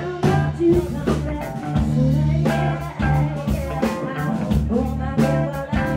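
Live rock band playing: electric guitar notes over a drum kit, with regular drum and cymbal hits.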